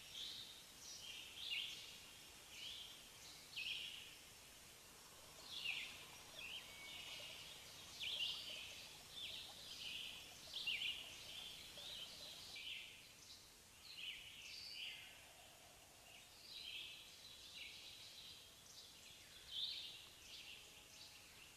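Small birds chirping faintly and often, many short calls, some dropping in pitch, overlapping one another.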